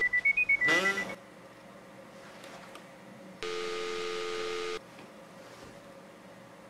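Telephone sounds heard down the line. A quick run of high electronic beeps in the first second ends in a short rising sweep, then after a pause a single steady ringback tone lasts about a second and a half while the call rings at the other end.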